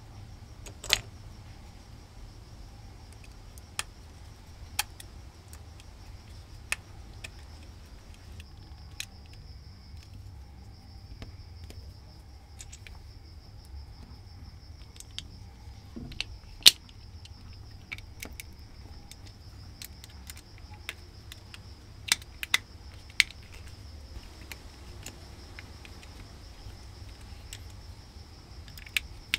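Scattered sharp clicks and light knocks, a dozen or so at irregular intervals, over a steady high-pitched insect drone and a low rumble.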